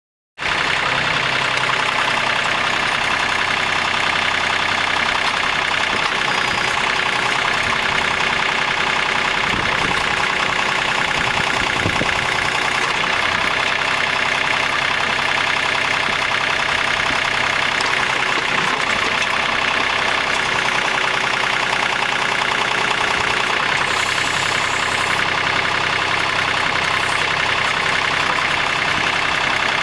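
Cub Cadet Yanmar EX3200 compact tractor's diesel engine running steadily while its backhoe's hydraulics work, a loud continuous drone with a high whine held over it.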